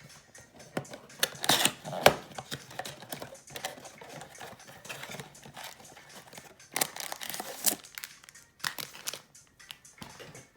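A cardboard trading-card blaster box being opened and its foil card packs taken out: irregular rustling, crinkling and tearing of cardboard and wrappers, with several sharp taps, the loudest about two seconds in.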